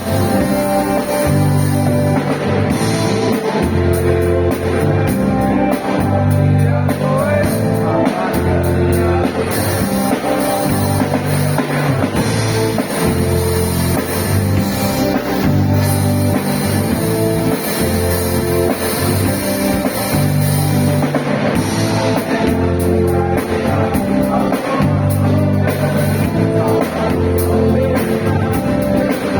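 Band music in a rock style: drum kit, bass and guitar playing a steady beat under a bass line that moves from note to note.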